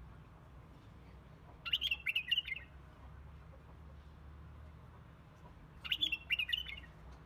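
A bird chirping: two short bursts of quick chirps, about four seconds apart, over a faint low steady hum.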